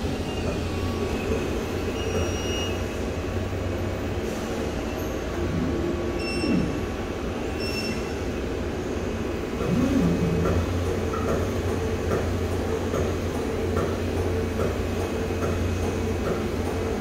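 Cotton candy vending machine running with a steady low mechanical hum. A few short high tones and a couple of brief low sliding sounds come through about six and ten seconds in.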